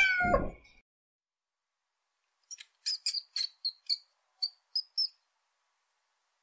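The end of a domestic cat's meow, falling in pitch and cutting off about half a second in. After a pause comes a quick run of about ten short, high chirps that stop about five seconds in.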